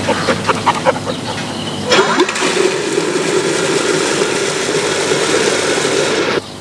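Domestic fowl call in quick repeated notes, about five a second. About two seconds in, water starts gushing from a spout into a metal enamel bucket as a steady rush, which cuts off abruptly near the end.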